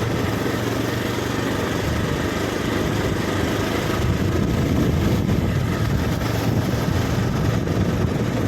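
A vehicle engine running steadily while driving, with a steady low drone under road and wind noise.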